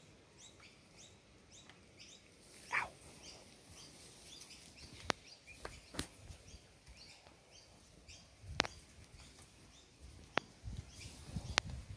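Small birds chirping, a quick falling note repeated two or three times a second, broken by a few sharp clicks and a short scuffing sound about three seconds in.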